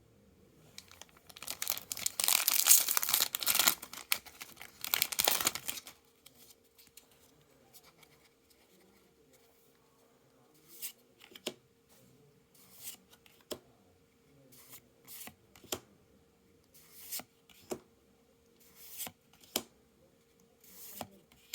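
A foil Magic: The Gathering booster pack wrapper being torn open and crinkled for about five seconds. After a pause, there are short soft swishes about once a second, as the cards are slid through one by one.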